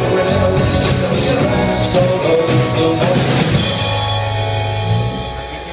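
Rock band playing with a full drum kit, then the drums stop about two-thirds of the way through and a final held chord rings out and begins to fade.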